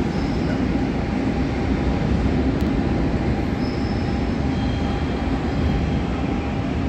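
Train running steadily, an even rumble of wheels on rails, with a few faint, brief high squeals partway through.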